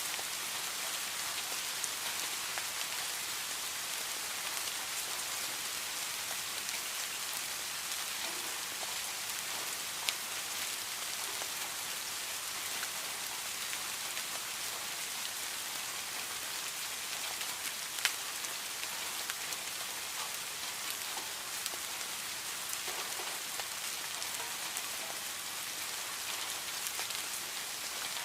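Rain falling steadily: an even hiss dotted with the ticks of separate drops. One sharper drop strike comes about ten seconds in, and a louder one a little past halfway.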